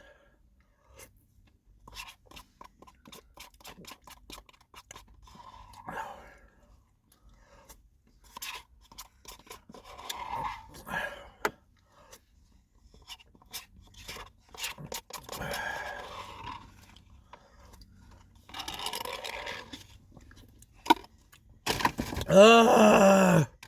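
Close-up eating and handling noises: scattered clicks, crunches and scraping, with soft mouthy sounds between them. Near the end comes a loud, drawn-out vocal sound lasting about a second and a half that falls in pitch.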